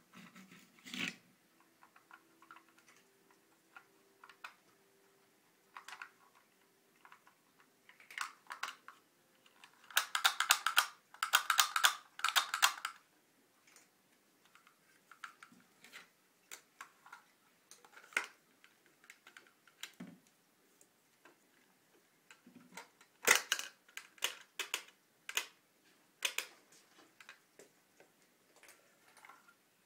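Small plastic pieces of a ring-escape magic prop clicking and rattling as they are handled on a wooden tabletop. The clicks come irregularly, with a dense flurry about a third of the way in and another cluster past the two-thirds mark.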